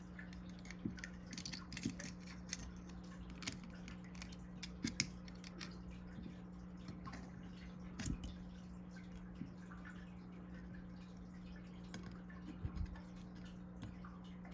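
Faint, scattered small clicks and ticks of a Torx driver working a tiny knife handle screw and the metal knife parts being handled, over a steady low hum.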